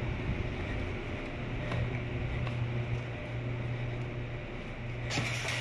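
A steady low mechanical hum, like a fan or air-handling unit, with a few faint clicks and a short burst of noise near the end.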